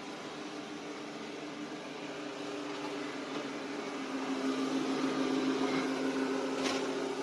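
A steady mechanical hum with a low drone and a higher held tone. It grows louder about four seconds in, and there is a short click near the end.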